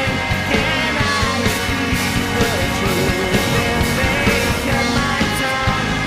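Rock music with a full band and a singing voice, loud and continuous with a steady beat.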